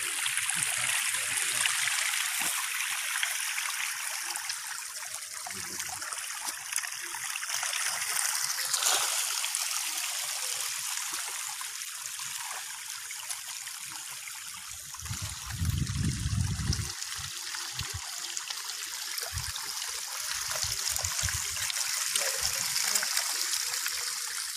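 Steady splashing and trickling of pond water as a shoal of pangasius catfish churns the surface while feeding. A brief low rumble comes a little past halfway.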